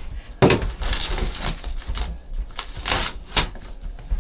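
Hands opening a sealed cardboard trading-card box: a series of short crinkles and scrapes as the wrapping and lid are worked open.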